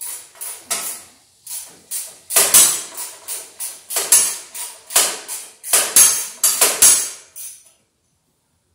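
Repeated sharp metal-on-metal strikes on the steel of a Wheel Horse garden tractor, about three a second with a short ring after each, louder in the middle and stopping near the end.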